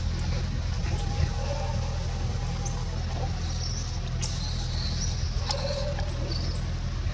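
A series of short, high-pitched animal squeaks and chirps, one drawn out into a thin whistle for about a second and a half, over a steady low rumble.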